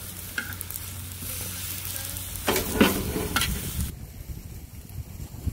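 Green onions and onion halves sizzling on a hot cast-iron pot lid, with metal tongs scraping and clacking against the lid a few times between about two and a half and three and a half seconds in. The sizzle cuts off abruptly near the end, leaving a quieter low rumble.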